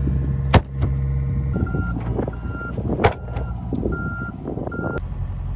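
Compact excavator's diesel engine running with a steady low hum. From about one and a half seconds in, its backup alarm beeps about five times in short, evenly spaced tones. Two sharp knocks stand out, one about half a second in and one about three seconds in.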